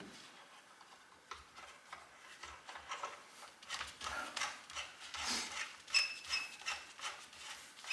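Soft clicks, taps and rubbing as a chainsaw wrap handle and its screws are handled and lined up against the saw body, with a few small metal clinks that ring briefly about six seconds in.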